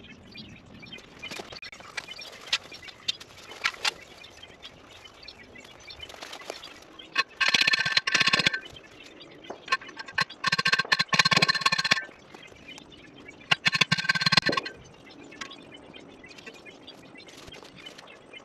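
Steel T-post being driven into the ground with a post driver: three bursts of rapid metal-on-metal clanging with a ringing tone, the first about seven seconds in, with a few single knocks before them.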